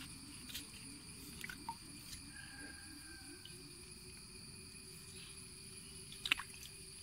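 Faint trickle of water flowing past a net fish trap set in a pond's overflow channel, under a steady high whine, with a few small clicks and splashes. The sharpest click comes about six seconds in.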